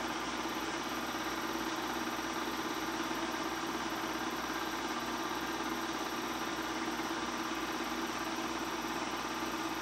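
Bell & Howell 253-A 8mm film projector running steadily: an even mechanical hum of motor and film transport, with a faint regular pulsing high up.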